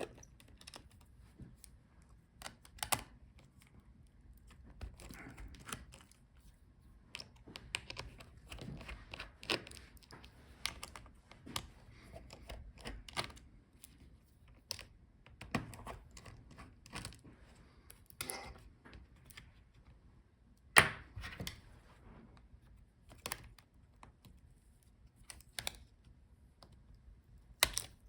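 Small screwdriver and screws being worked out of a laptop's motherboard and chassis: scattered, irregular light clicks and taps, with one louder click about three-quarters of the way through.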